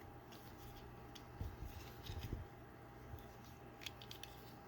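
Faint, scattered clicks and taps of hands handling a small diecast toy car and its packaging.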